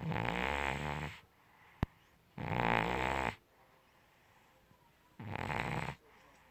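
A cat snoring: three snores, each about a second long, coming roughly every two and a half seconds. A single sharp click sounds between the first two.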